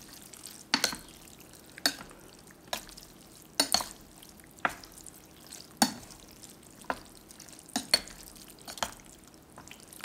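Eating utensils clinking against a bowl as noodle soup is stirred to mix in the seasoning: sharp, short clinks about once a second, a few in quick pairs, over a faint steady hiss.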